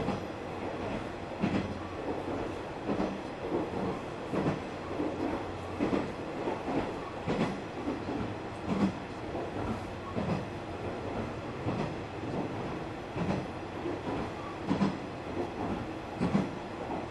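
KiHa 120 diesel railcar running, heard from inside the car: a steady low drone with a regular clack of the wheels over rail joints about every second and a half.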